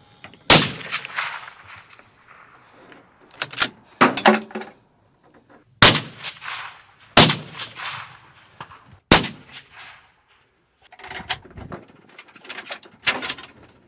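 Bolt-action sniper rifles fired as single shots, about six loud cracks spaced a second or more apart, each trailing off in a rolling echo. Lighter metallic clinks fall between the shots, and a run of quieter clicks comes near the end.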